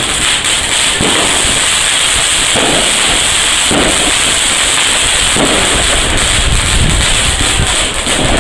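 Ground fireworks and firecrackers going off close by, a dense, continuous crackle of many small pops.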